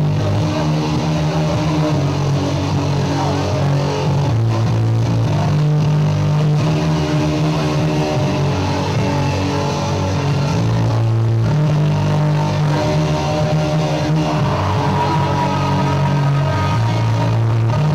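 Music with long, held bass notes that change every couple of seconds. It starts abruptly just before this point and plays at a steady level.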